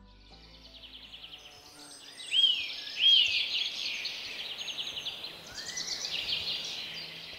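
Birds chirping and chattering in open countryside, a dense rapid high twitter with two loud arched chirps about two and a half and three seconds in. Soft background music fades out in the first second or so.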